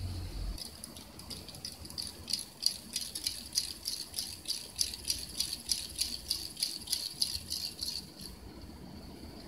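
Cat teaser wand toy rattling as it is shaken and flicked: quick bursts of dry rattling, two or three strong shakes a second, starting about half a second in and stopping shortly before the end.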